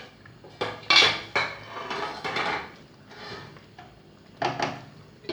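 Metal cookware clattering: a pot lid and utensils knocking against a cooking pot in a run of sharp clanks and clinks, with a closer pair near the end.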